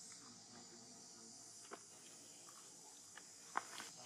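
Faint, steady high insect drone with a few short clicks and crunches from a young long-tailed macaque chewing fruit, the loudest about three and a half seconds in.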